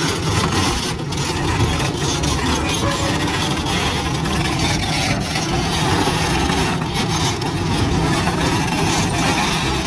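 SANY crawler crane's diesel engine running steadily, heard as a dense, even rumble with a hiss over it.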